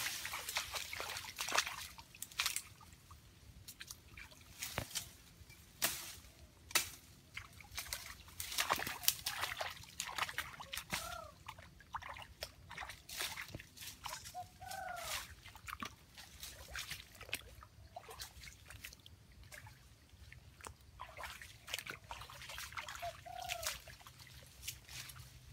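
Water sloshing and splashing in irregular bursts, with a few short curved animal calls, three in all: one about eleven seconds in, one near the middle and one near the end.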